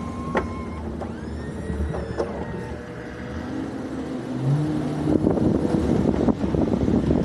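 Ford F-350 plow truck's engine running as the truck drives and turns, rising in pitch about halfway through as it speeds up, with a few knocks.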